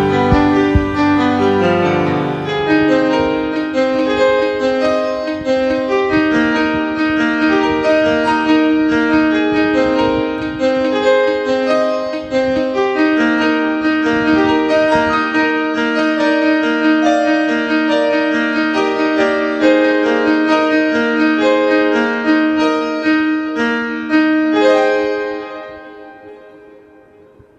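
Background piano music, a gentle melody of held notes, fading out near the end.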